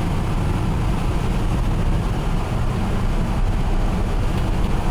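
Old Ford F100 pickup driving at road speed, heard from inside the cab: a steady low rumble of engine and road noise.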